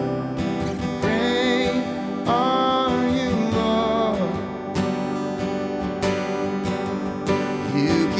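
Worship band music led by strummed acoustic guitar, with a voice holding long wavering notes about a second in and again from just over two seconds to about four seconds.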